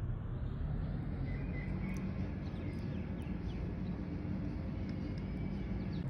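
Steady low rumbling background noise, with a few faint light ticks.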